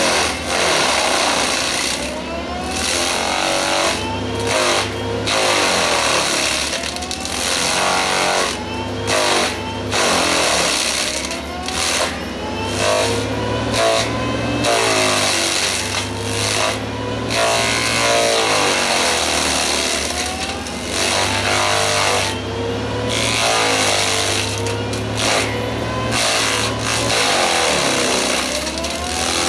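FAE DML/HY/VT fixed-tooth excavator mulcher, its hydraulically driven rotor chewing through brush and small trees over the running excavator engine. The whine repeatedly falls and rises again in pitch, with frequent cracks of wood being struck.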